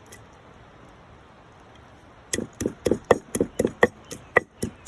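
Pestle pounding garlic and chili in a mortar: after about two seconds of quiet, a quick run of sharp strikes, about three or four a second.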